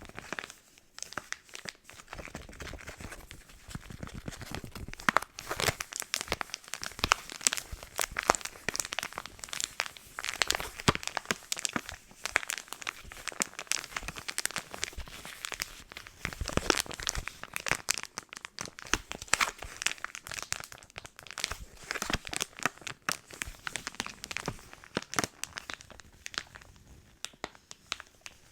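Packaging being crinkled and handled close to a microphone, a dense run of crackling with some tearing, as if wrapping is being opened.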